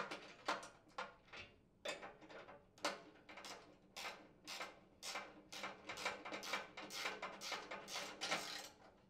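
Ratchet and socket driving sheet-metal screws into speed clips: a run of short metallic clicking strokes, irregular at first and then about two or three a second.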